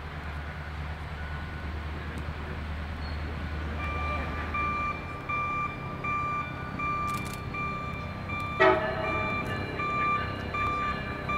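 Norfolk Southern diesel locomotive approaching, its bell ringing in an even repeating rhythm from about four seconds in, with one short horn toot about two-thirds of the way through. A low engine rumble fades out early on.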